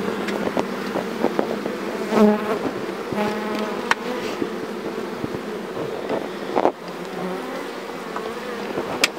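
Swarm of disturbed honeybees buzzing around a comb being taken from their hive, a steady hum that swells louder about two and three seconds in, with a few light knocks.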